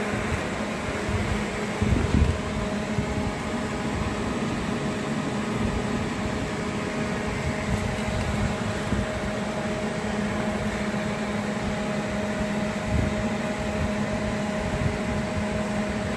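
A fan running steadily: a constant low hum under an even hiss. A brief knock about two seconds in.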